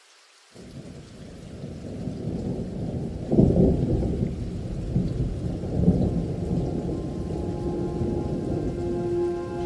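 Thunder rumbling, coming in suddenly about half a second in and building, with two louder peals about a third and about two thirds of the way through. Near the end a held musical note enters under the rumble.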